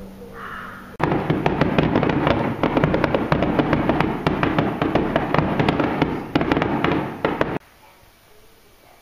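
A firework crackles in a dense, rapid stream of sharp pops for about six and a half seconds, starting and stopping abruptly. Just before it, a crow caws.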